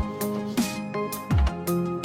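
Background music: a plucked, guitar-like melody over a steady beat of deep bass drum hits that drop sharply in pitch.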